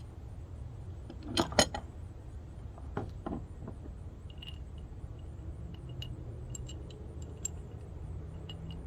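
Allen wrenches and metal latch hardware clinking: two sharp knocks about a second and a half in, a couple of softer knocks around three seconds, then light scattered metallic ticks.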